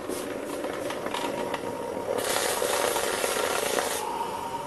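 Hot, just-solidified cast aluminium in its steel tube mould hissing in a bucket of water as it is quenched, steam boiling off. The hiss grows stronger about two seconds in and eases near the end.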